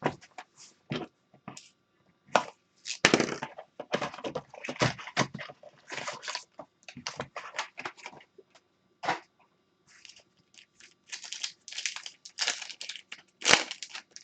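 Plastic wrapping and card packs being torn open and crinkled by hand, in irregular bursts of crackling and tearing.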